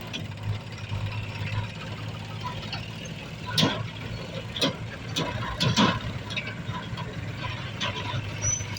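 Diesel engine of heavy farm machinery idling steadily, with a few sharp knocks or clanks near the middle.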